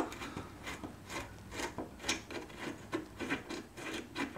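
Hand screwdriver turning out an old, worn number 8 screw from a camper's aluminum drip rail, with short scraping, grinding twists about two or three times a second.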